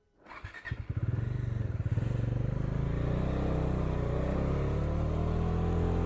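Bajaj Dominar 400's single-cylinder engine heard from the rider's seat, its beat quickening as the bike pulls away in the first second or so, then running steadily at a low, even pace.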